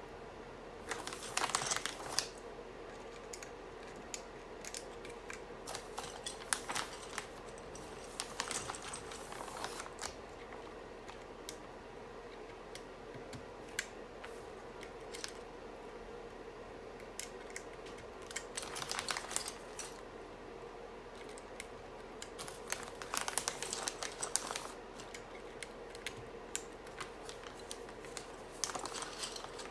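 Keys of a UT47.2 40% mechanical keyboard clicking as they are pressed, in five short rapid bursts with scattered single clicks between, over a faint steady hum.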